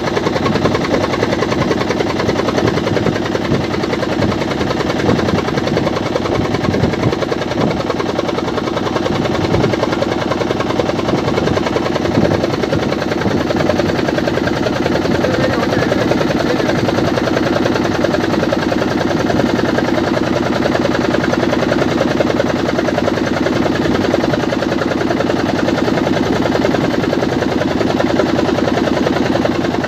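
Motorboat engine running steadily, a fast even chugging heard from on board.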